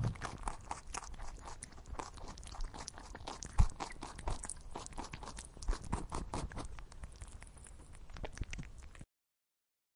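Tortoises biting and chewing leafy greens: a rapid, irregular run of crisp crunching and tearing bites, with one louder knock about three and a half seconds in. The sound cuts off about nine seconds in.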